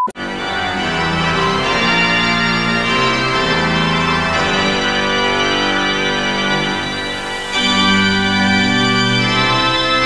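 Music of sustained organ-like keyboard chords that change slowly, turning fuller and brighter about seven and a half seconds in.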